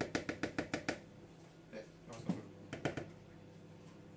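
Plastic kitchenware clicking and knocking: a quick run of about eight sharp clicks in the first second, then a few scattered knocks, as a small utensil works against a plastic container.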